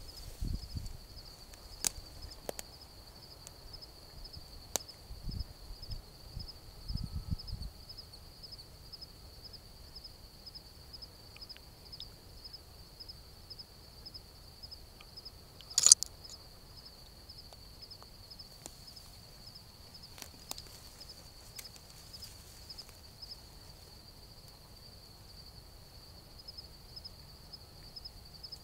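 Insects chirping steadily in a high, pulsing trill. Low rustles and a few faint clicks come in the first eight seconds, and one sharp, loud snap about sixteen seconds in.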